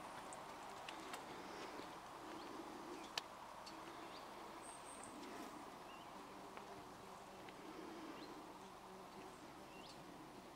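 Faint outdoor ambience: a low steady background with a few short, sparse bird chirps and a sharp click about three seconds in.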